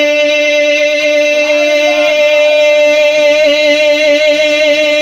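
A man's amplified singing voice holding one long, steady high note of a devotional Urdu song (naat) for about five seconds, breaking off near the end.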